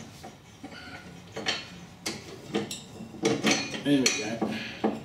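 Metal parts of a ride-on mower's cutter deck clinking and scraping as the tension pulley and its bracket are handled and worked loose by hand, with a run of sharp clinks and knocks in the second half.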